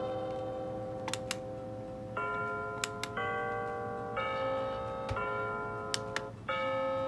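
XREXS large digital wall clock's alarm ringtones playing: a melody of electronic chime notes, each held about a second. A few sharp clicks sound in pairs between the notes.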